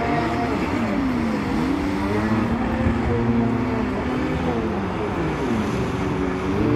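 Stand-up jet ski engine revving up and down as it carves turns, its pitch falling and rising several times over a steady rushing noise.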